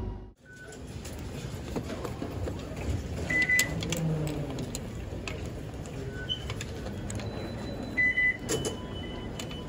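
Automatic fare gate at a rail station exit giving two short, high beeps a few seconds apart as a token is fed into its slot. With 'Please Try Again' on the gate's screen, the beeps are its reject signal. A steady station hum and small clicks run underneath.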